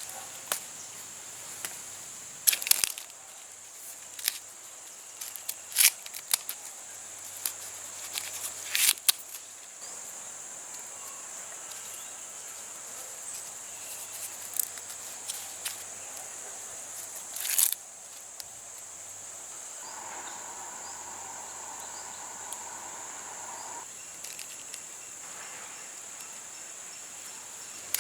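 Steady high-pitched chirring of insects, with scattered sharp crackles and clicks over it. A faint steady tone joins for a few seconds about two-thirds of the way through.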